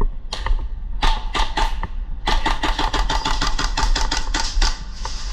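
Airsoft rifle firing: a few single shots, then a rapid sustained burst of about two and a half seconds with a steady whine under the shots.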